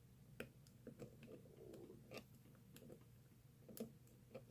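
Faint, irregular clicks and scrapes of a lock pick and tension wrench working the pins inside a Master Lock 580DLF padlock during single-pin picking.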